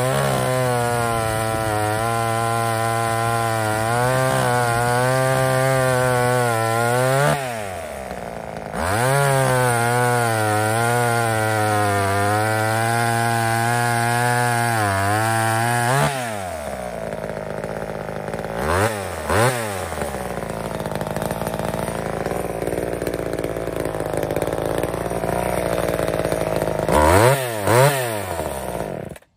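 Lombard Little Lightning Super 39 cc two-stroke chainsaw cutting through a log at full throttle, its pitch wavering under load, in two long cuts with a drop to idle between them. It then idles at a lower pitch, with two pairs of quick throttle blips, and cuts off suddenly at the end.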